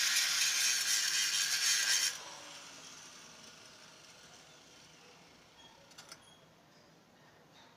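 Welding arc on a steel pipe, a loud crackling hiss that stops abruptly about two seconds in. After it, only a few faint clicks.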